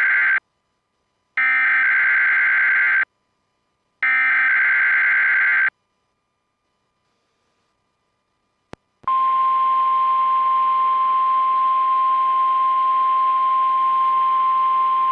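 Emergency Alert System weekly test signal on NOAA Weather Radio. It opens with the end of one SAME header data burst and then two more full bursts, harsh digital screeches each about a second and a half long with short gaps between. After a pause and a single click, the steady 1050 Hz warning alarm tone begins over a hiss of radio static.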